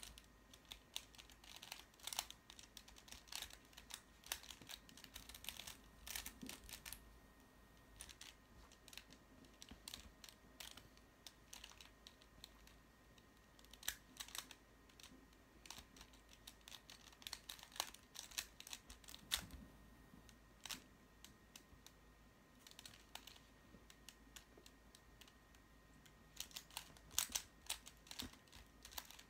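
Mastermorphix twisty puzzle being turned by hand: faint, irregular clicking and clacking of its plastic layers, in quick clusters with short pauses between.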